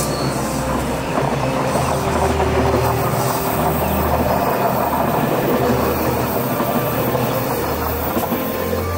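Glacier Express train's metre-gauge panorama coaches passing close by on a curve, steel wheels running over the rails with a steady noise and some squeal from the curved track.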